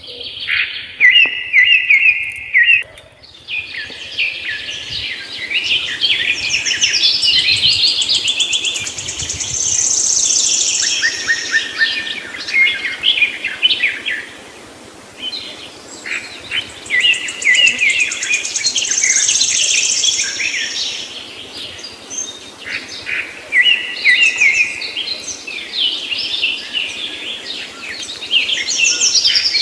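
A chorus of many small birds chirping and singing together: quick high twitters and trills overlapping, with louder and quieter stretches.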